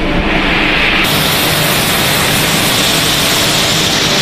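Steady machinery noise from a snack-pellet production line, a loud hiss with a faint hum in it. About a second in it changes abruptly and becomes much hissier.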